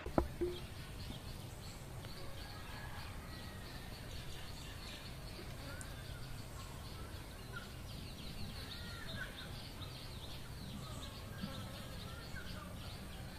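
Ambient background of small birds chirping, many short chirps over a low steady hum, with one brief knock just after the start.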